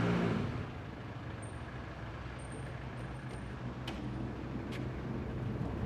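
A London black cab's engine running and fading away in the first half-second as it pulls off, leaving a low steady street hum. A little past halfway come two sharp clicks from the key and latch of a front door being unlocked and opened.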